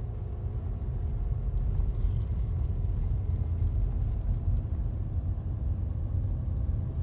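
Car engine and tyres running at highway speed, a steady low rumble and drone heard from inside the cabin.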